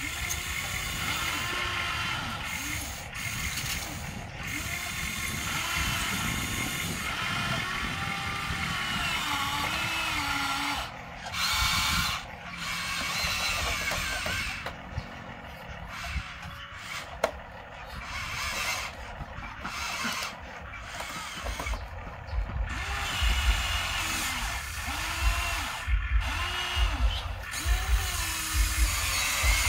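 Electric motors and gearboxes of a Huina remote-control toy excavator whining, the pitch rising and falling in short glides again and again as the boom and tracks move. A fast low rattle joins in over the second half.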